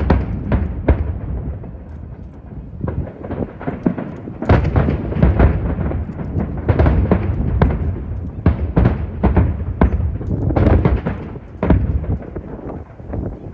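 Aerial fireworks display: a rapid, irregular run of shell bursts and cracks, several a second in clusters, over a constant low rumble of booms and strong wind on the microphone.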